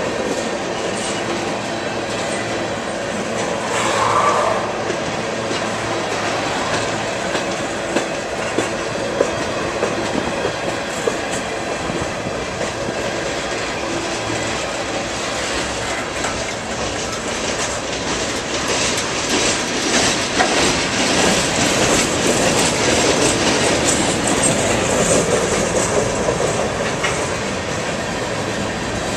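Freight cars rolling past close by, steel wheels on rail making a steady rumble with clickety-clack over the rail joints and a few sharp clicks.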